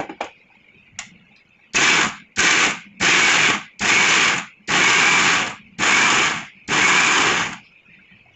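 Havells mixer grinder run in seven short pulses, each under a second, coarsely grinding tomato, onion, green chilli and roasted peanuts in its steel jar for a chutney. A couple of clicks come first as the jar is set on the base.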